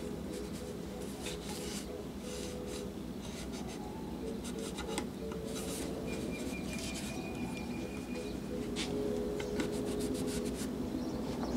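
A cloth rubbing over a painted locomotive body panel in short, uneven wiping strokes.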